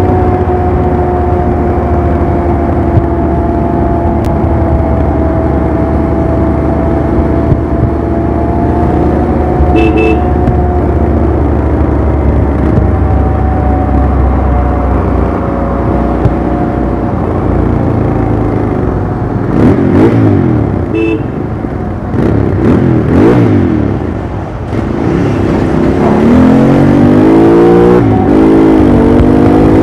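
Royal Enfield Interceptor 650's parallel-twin engine and exhaust running under way, at first holding a steady note that slowly sinks in pitch. About two-thirds through it is blipped up and down a few times, and near the end it climbs steadily as the bike accelerates. A horn beeps briefly twice.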